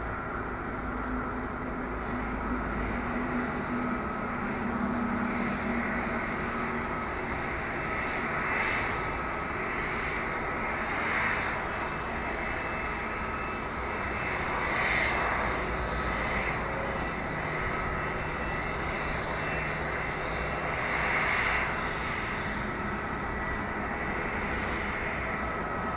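Airbus A321-231's twin IAE V2500 turbofans running at low taxi thrust: a steady jet whine over a broad rush of noise, swelling briefly a few times.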